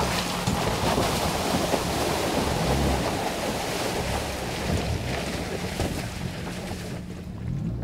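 2024 Toyota Tacoma i-Force Max pickup driving slowly through mud and puddles: its 2.4-litre turbo four-cylinder engine running low under the splash and slosh of tyres in muddy water. The sound fades as the truck pulls away, the hiss dropping off near the end.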